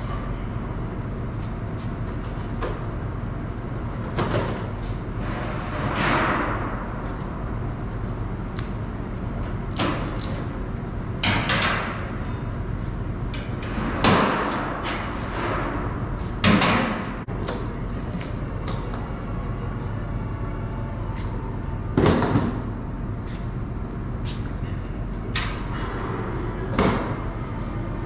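Metal scaffold parts clanking and scraping now and then as they are handled on a loaded cart, about eight knocks, some ringing on in a large concrete hall, over a steady low hum.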